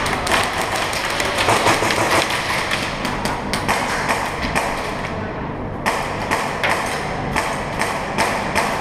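Fast, irregular clatter of airsoft gunfire and BBs striking plywood walls, echoing through a large indoor hall.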